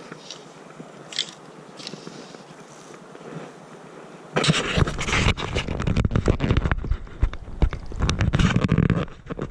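A faint hiss with a few light clicks, then about four seconds in a loud, dense scraping and crackling starts and goes on in irregular surges: close rubbing and handling noise on the camera's microphone.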